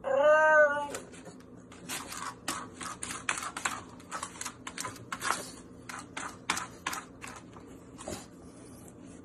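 A pug gives one short whine that rises and falls, then a run of short, irregular scrapes and scrabbling as it wriggles its body through the narrow gap between two cabinet doors.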